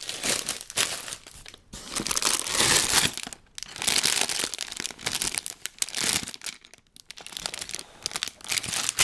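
Plastic Lego parts bags crinkling as they are handled, in several bursts with short pauses between them.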